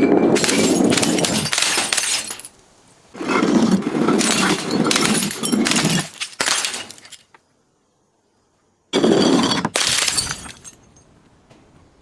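Glass bottles breaking and crunching into pieces, loud, in three long stretches of crackling and shattering, with about two seconds of silence before the last.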